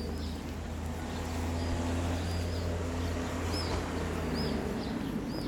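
A steady low engine hum that stops about four and a half seconds in, with small birds chirping repeatedly over it.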